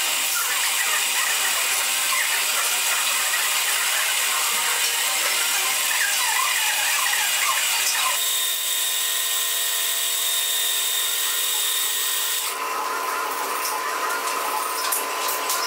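Small metal lathe running, its tool cutting a short rod held in the spinning chuck. About eight seconds in, the cutting noise gives way to a steadier whine of the motor and gearing.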